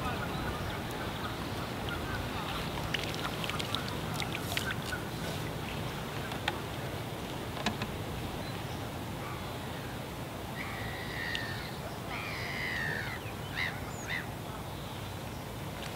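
Steady low outdoor background noise with a few light clicks and knocks of pole-fishing tackle being handled in the first few seconds, then a short run of bird calls from about ten to fourteen seconds in.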